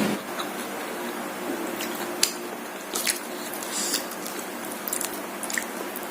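Close-miked mukbang eating sounds: chewing and biting into martabak, with scattered short wet clicks and crunches over a steady low background hum.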